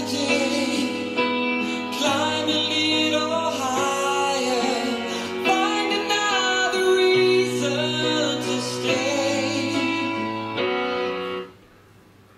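A song with singing over guitar played at full volume through an Edifier Extreme Connect (MP260) portable Bluetooth speaker. The music stops abruptly about a second before the end.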